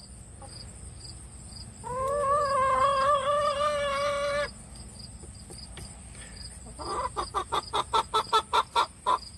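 A chicken gives one long, drawn-out call that rises at the start and then holds for about two and a half seconds, and about seven seconds in it breaks into a quick run of short clucks, roughly seven a second.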